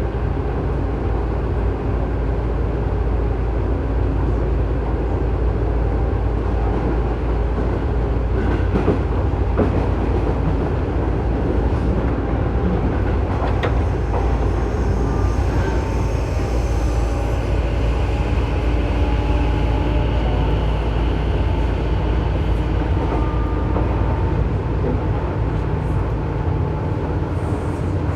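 Interior running noise of a Tobu 9000-series electric train, heard from car MoHa 9204 right above its armature chopper: a steady low rumble of wheels on rail with thin, steady electrical whine tones over it. About halfway through, a faint higher tone rises. The chopper in this car is the one known for making an abnormal noise.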